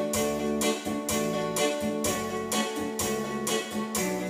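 Electronic keyboard playing a song's instrumental introduction: held chords over a steady beat of about two strokes a second.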